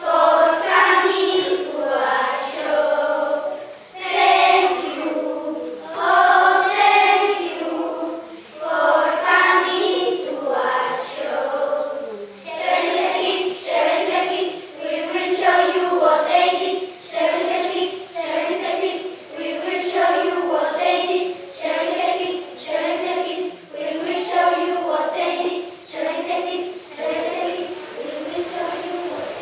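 A group of children singing together in unison. About halfway through, the song moves into short, evenly paced phrases, roughly one a second.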